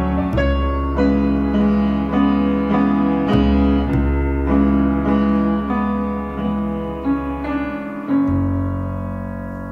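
Piano playing the slow closing bars of a song, notes struck about twice a second over a held bass. A final chord about eight seconds in rings out and fades.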